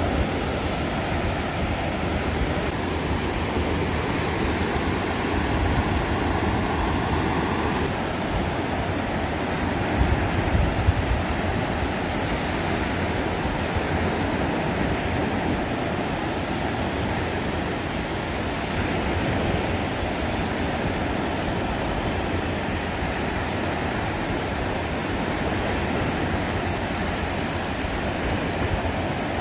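Surf breaking along an open beach, a steady rushing wash, with wind rumbling on the microphone; it swells briefly about ten seconds in.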